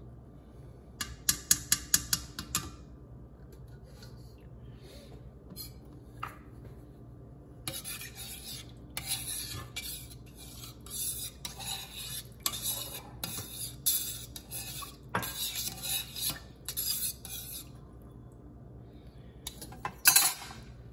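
A quick run of light metallic taps about a second in, then a spoon stirring and scraping around a stainless steel saucepan in rhythmic strokes, about two a second, mixing beef broth into strained yautía purée; a couple of sharper clinks near the end.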